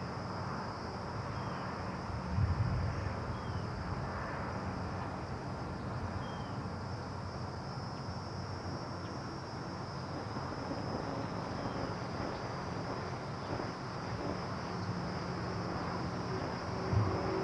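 Insects droning steadily at a high pitch, over a low rumble of outdoor background noise, with a soft thump about two and a half seconds in.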